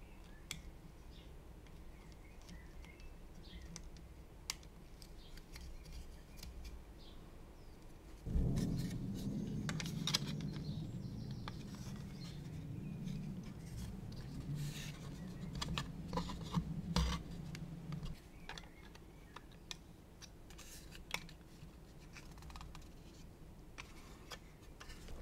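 Small clicks, scrapes and snips of plastic model-kit parts and tape being handled and cut at a workbench. A steady low hum runs through the middle stretch, with louder clicks over it.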